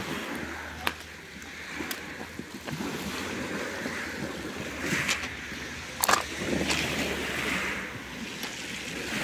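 Footsteps crunching on a pebble beach, with a few sharp clicks, over the steady wash of small waves on the shingle.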